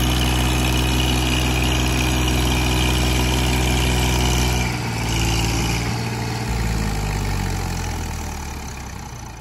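Massey Ferguson 1035 tractor's three-cylinder diesel engine running slowly and steadily while pulling a loaded trolley. About halfway through the engine note drops and changes, and the sound then fades away toward the end.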